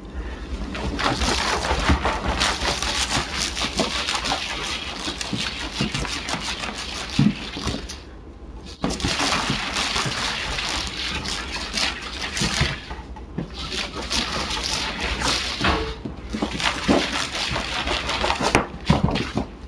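A cat being spun by hand on a hardwood floor: a dense scraping, rustling slide against the wood. It comes in several stretches that break off briefly a few times.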